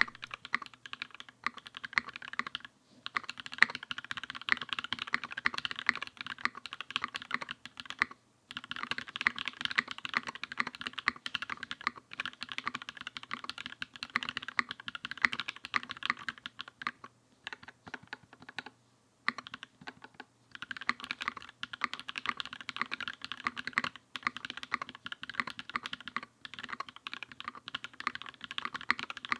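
Typing on a Satisfaction 75 mechanical keyboard with an FR4 plate, pre-lubed Invokeys Matcha Latte switches and Durock stabilizers: fast, continuous runs of key clacks, broken by a few short pauses and a slower, sparser patch near the middle.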